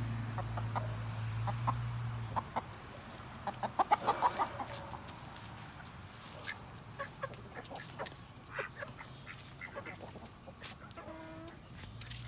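Chickens clucking, with a quick run of loud clucks about four seconds in and scattered softer clucks after. A low steady hum stops about two seconds in.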